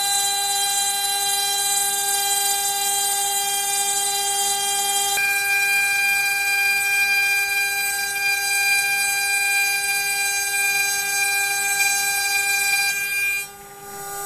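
CNC router spindle running with a steady whine made of several fixed tones; the tone changes about five seconds in, and the sound dips sharply for a moment near the end.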